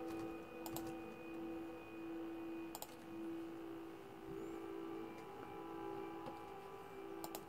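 A few sharp laptop keyboard clicks, spaced seconds apart, over a faint steady background of held tones.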